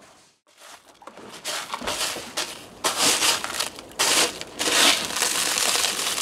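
Plastic litter scoop raking and sifting through small beach pebbles used as cat litter in a plastic litter box, the stones crunching and rattling in a series of scrapes. It starts after a nearly silent first second, and the loudest scrapes come about three, four and five seconds in.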